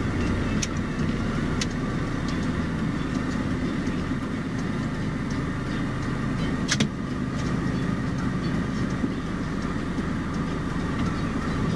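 Steady engine and road hum inside a car's cabin as it moves slowly, with a few sharp clicks, the loudest about seven seconds in.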